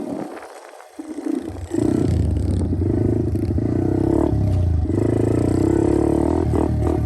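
A 110cc pit bike's small four-stroke single engine is ridden. It is low and nearly off throttle for about the first second and a half, then comes back on and runs loud and steady under load. Near the end come a few quick revs up and down.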